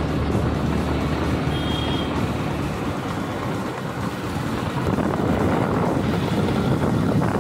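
Riding through town traffic: a vehicle engine running under wind buffeting the microphone, with a brief high beep about one and a half seconds in.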